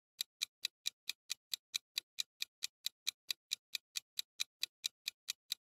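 Countdown-timer ticking sound effect: short, even clock-like ticks, about four to five a second, marking the quiz's answer time.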